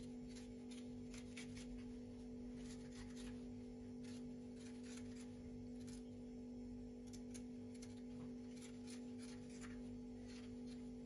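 Soft, irregular scraping and scratching of a thin metal vegetable corer twisting inside a courgette, hollowing out its flesh, over a steady low hum.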